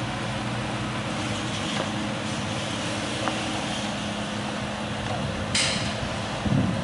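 Steady machinery hum with a constant low tone over even background noise. A short burst of hiss comes about five and a half seconds in, and a low rumble rises near the end.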